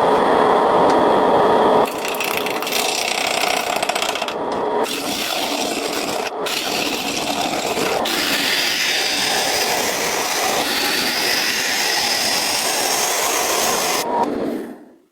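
A tool scraping and rubbing on wood, a steady rasping noise that changes abruptly several times, as in joined clips.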